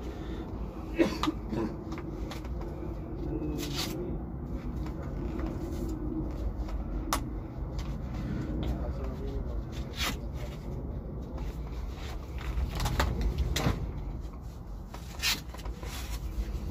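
Scattered sharp plastic clicks and knocks as motocross knee braces and boot buckles are handled and unfastened, over a steady low rumble.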